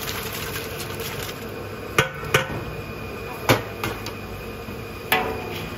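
Metal kitchenware clanking against a large aluminium stockpot: four sharp knocks, two close together about two seconds in, one a little after three seconds and one near the end, over a steady background hiss.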